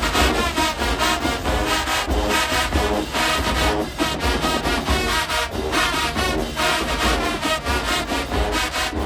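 College marching band playing: massed brass horns in short, punchy phrases over bass drums and percussion.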